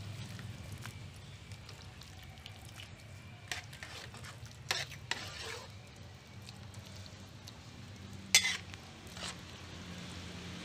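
A spoon clinking and scraping against a bowl of stir-fried luffa: a few sharp clicks, the loudest about eight seconds in, over a low steady hum.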